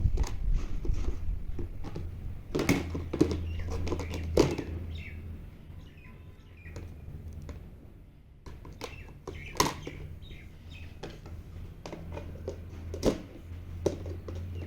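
Plastic fridge storage containers being handled: scattered knocks and clicks, loudest in a cluster a few seconds in and in single knocks near the middle and toward the end, over a low steady hum. Birds chirp faintly in the background.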